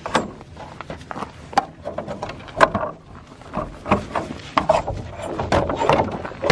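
A plastic mud flap being worked off its tube bracket at the back of a crosskart by gloved hands: a run of irregular knocks, clicks and scrapes.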